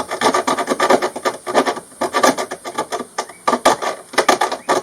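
Rough edges of holes cut in a van's metal floor being deburred by hand, a quick run of back-and-forth rasping strokes.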